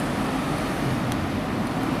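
Steady road traffic noise: a car's engine and tyres running on the road, an even rush with a low rumble underneath.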